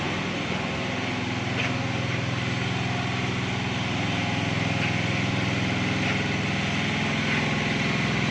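Mini excavator's engine running steadily, getting a little louder over the second half.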